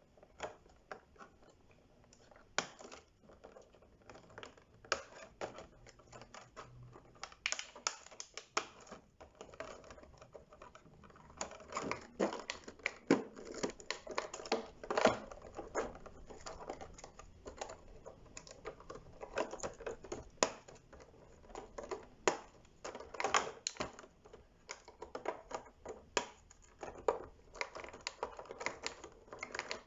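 Irregular clicks, taps and rustles from a boxed Transformers action figure and its packaging being handled and unpacked. The handling gets busier and louder in the second half.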